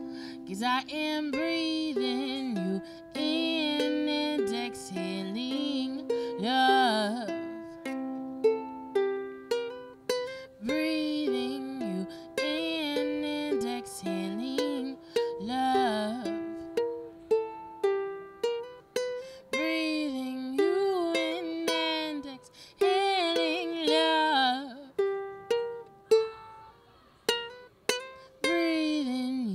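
A woman singing a slow song in phrases to her own ukulele accompaniment, its plucked chords steady beneath the voice. Near the end the singing stops and the ukulele plays on alone.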